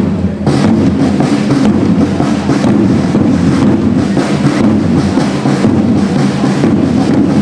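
A marching drum corps playing a steady, rhythmic beat on side drums as the drummers march in formation.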